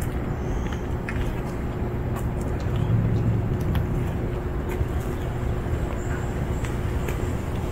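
Steady low outdoor rumble, with a faint steady hum underneath and a few faint clicks.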